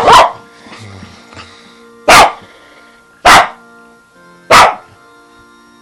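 A Shiba Inu giving four short, loud blasts, one every second or so, over steady background music.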